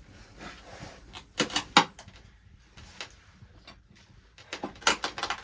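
A few sharp clinks and knocks of cookware and utensils being handled, in two pairs and then a closer cluster near the end.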